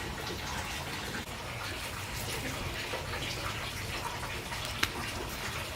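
Water running and splashing steadily, with one sharp click a little before the end.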